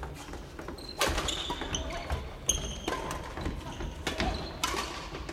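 Badminton rackets striking a shuttlecock during rallies, with several sharp hits (about a second in, at two and a half seconds and twice near the end), over footfalls on a wooden sports floor and players' voices echoing in a large hall.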